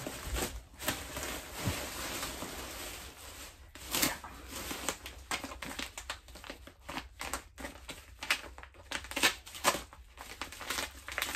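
Black plastic garbage bags rustling and crinkling as they are handled and pulled open, with irregular sharp crackles, one louder about four seconds in.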